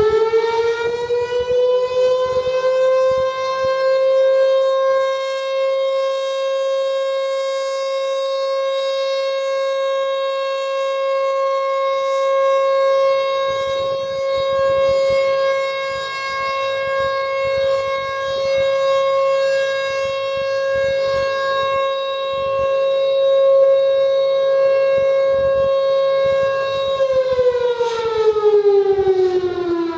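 Federal Signal Thunderbolt 1000 outdoor warning siren sounding its steady alert signal during a test. It finishes winding up in the first few seconds and holds one steady tone. About three seconds before the end it starts winding down, its pitch falling.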